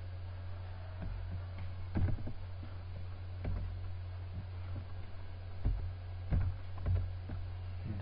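Computer keyboard keys being typed, a handful of irregular single clicks over a steady low hum.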